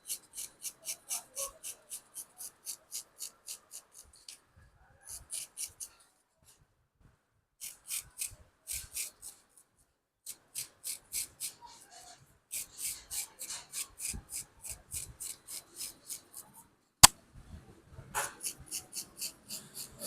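Barber's blade cutting hair in quick, even strokes, about four or five a second, in runs broken by short pauses, with one sharp click near the end.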